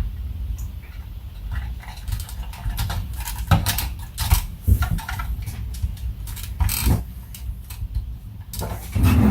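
Handling noises from work on a car instrument cluster: irregular small clicks, taps and rubbing, with a louder scrape near the end, over a low steady rumble.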